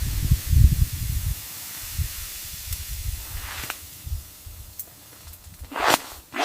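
Wind noise: a steady hiss with low, gusty rumbles in the first second or so, and a couple of brief swishes later.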